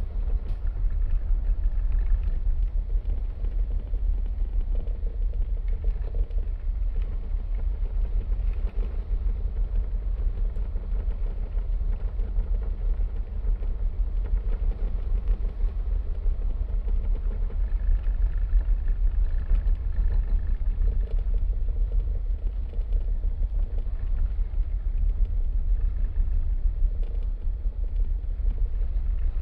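Steady low rumble of the car ferry M/F Geiranger under way, heard on its open deck with wind buffeting the microphone.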